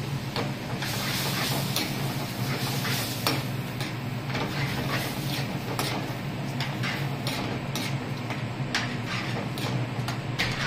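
Spiced beef curry frying in a pan on a gas burner while a metal ladle stirs and scrapes it, with frequent clicks of the ladle against the pan. A steady low hum runs underneath.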